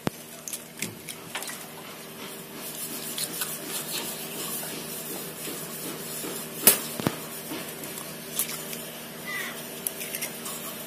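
Eggs being cracked on a stainless steel bowl and their shells pulled apart by hand: scattered sharp clicks and taps, the loudest about two-thirds of the way through, over a steady low hum.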